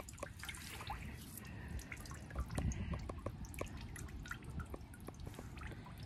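Hose water running into a galvanized metal stock tank: a faint trickle with many small scattered drips and splashes.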